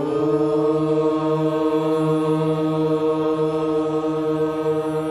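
A group of voices chanting one long, steady held note in unison, as in a prayer chant.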